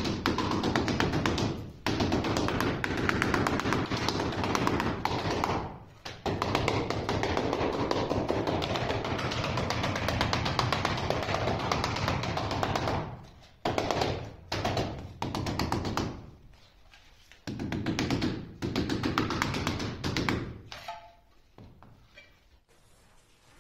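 Rubber mallet tapping rapidly and repeatedly on ceramic tiles to bed them into tile adhesive. The taps come in long runs broken by short pauses and die away near the end.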